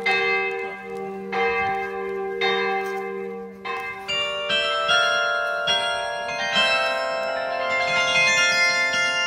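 Carillon bells ringing: single bell strokes about once every second and a bit, each ringing on, then from about four seconds in a quicker run of overlapping notes playing a tune.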